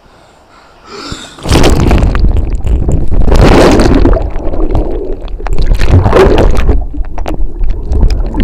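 Loud splashing and churning water from a capsized kayaker thrashing through a hand-roll attempt that fails to right the kayak. It starts about a second and a half in, in irregular surges.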